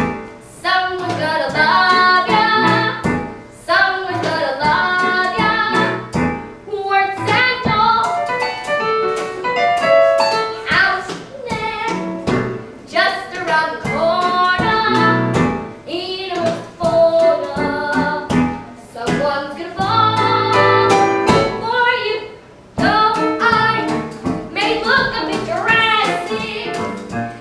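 Children's voices singing a musical-theatre song over instrumental backing, in phrases with short breaths between them.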